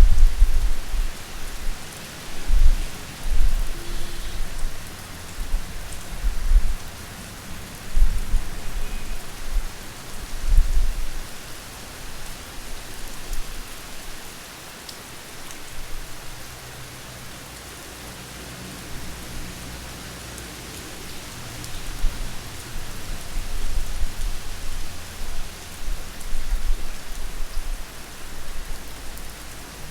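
Steady rain falling, with irregular deep rumbles that swell and fade every few seconds in the first third and again near the end.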